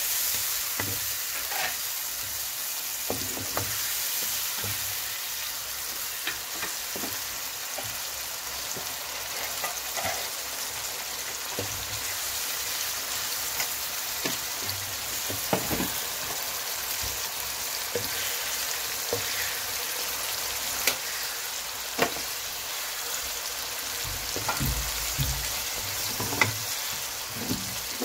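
Raw chicken pieces and onions sizzling in hot oil in a non-stick pan, stirred with a wooden spatula that now and then scrapes and knocks against the pan.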